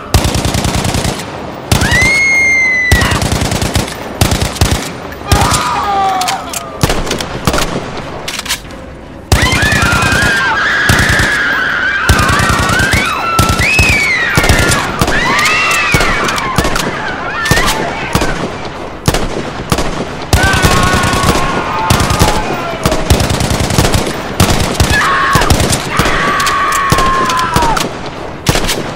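Sound effect of sustained rapid automatic gunfire with people screaming over it; the screams come and go in rising and falling wails while the shooting keeps on.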